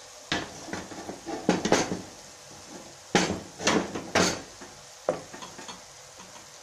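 Half a dozen sharp knocks and clatters of kitchenware, the loudest bunched in the middle, as a plastic blender jug is handled and set on the stove beside an aluminium karahi with a wooden spoon in it. Under them, the faint sizzle of sliced onions frying in oil.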